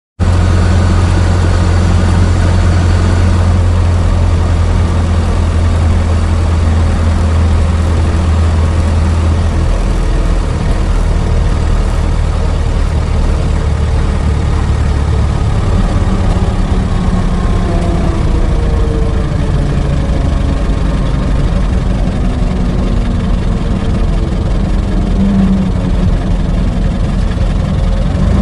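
Old car engine running while driving: a loud, steady low drone whose pitch rises and falls a little partway through.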